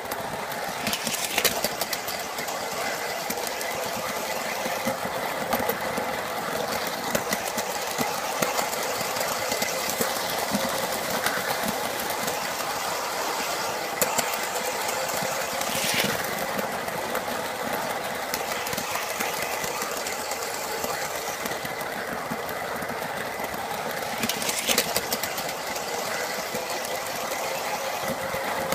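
O gauge tinplate model train, double-headed by two ACE Trains Britannia locomotives, running steadily with a constant electric-motor whine and the rattle of wheels on tinplate track. There are a few sharp clicks as the train crosses rail joints and points.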